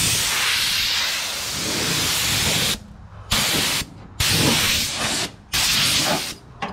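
Compressed-air blow gun blasting loose rust and debris off a rusty steel truck bed: one long blast of about two and a half seconds, then three shorter blasts with the trigger let off briefly in between.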